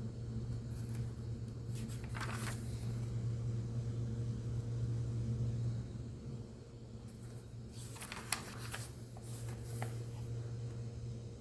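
Hymnal pages being turned, giving two bouts of papery rustling, about two seconds in and again from about eight to ten seconds in. Under them runs a steady low hum that drops in level about six seconds in.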